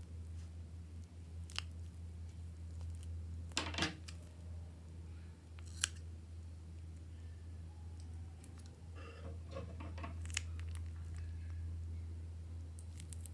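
A plastic piping bag of soft clay being handled, with scissor snips cutting its tip and a few sharp clicks and crinkles scattered through, over a steady low hum.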